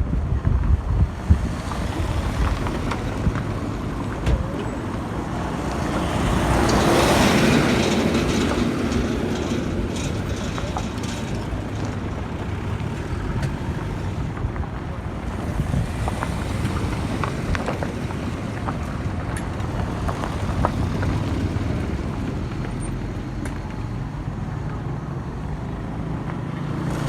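Road traffic running steadily past, with one vehicle passing close and loudest about seven seconds in, rising and then fading away.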